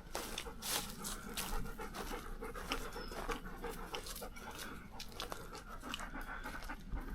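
A dog panting steadily in quick breaths.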